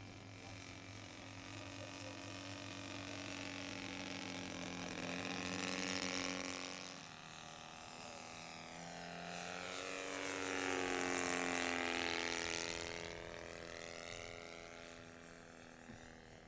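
Saito FG-61TS 61cc four-stroke gas twin engine of a large RC Cub flying two passes. Its note swells as the plane comes close and drops in pitch as it goes by, first about six seconds in and again, louder, around eleven to twelve seconds in.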